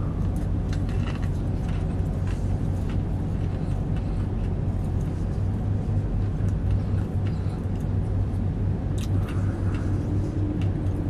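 Steady low hum of a vehicle engine running at idle, heard inside the cabin, with faint crackles of a crispy fried chicken sandwich being bitten and chewed.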